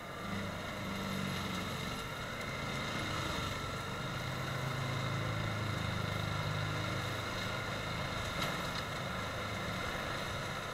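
Tractor engine running steadily under load, driving a rear-mounted forestry mulcher that is grinding through brush and soil. A single sharp crack is heard about eight seconds in.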